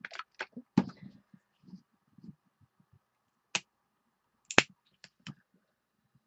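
Sharp clicks and taps of craft supplies being handled on a tabletop, about seven in all, the loudest about four and a half seconds in.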